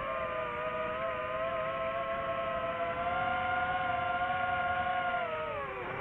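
DJI FPV drone's motors and propellers whining steadily. The pitch steps up slightly about halfway, then drops sharply near the end as the throttle comes off.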